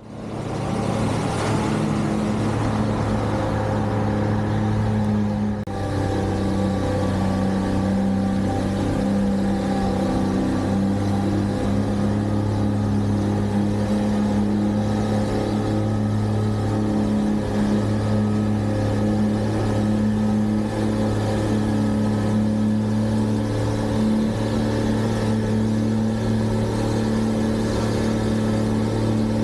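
Engine of a snow-removal vehicle running steadily at an even pitch, a constant deep hum, with a brief dip in level a little over five seconds in.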